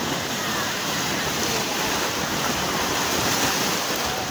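Steady rushing noise with no break, with a few faint short chirps over it.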